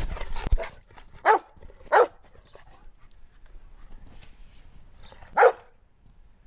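A dog barking three times in short single barks: two close together a little over a second in, and a louder third one about five and a half seconds in.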